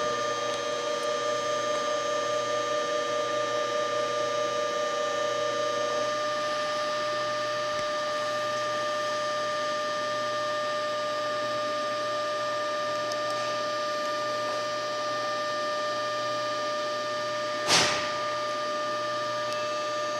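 Steady electrical whine and hum, several fixed tones over a low noise, from a Nankai 50000 series 'Rapi:t' train standing idle at the platform. One lower tone drops out about six seconds in. A short sharp burst of noise comes near the end.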